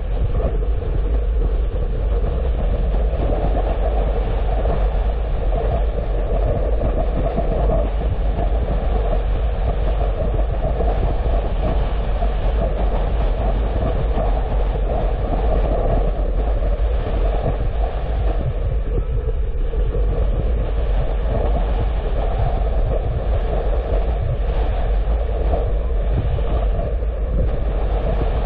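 Steady road noise of a vehicle driving: a continuous low rumble of tyres and engine that holds even throughout.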